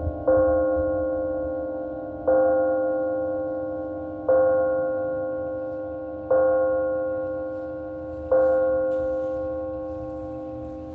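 A single church bell tolling, struck five times about every two seconds at the same pitch, each stroke ringing on and fading until the next.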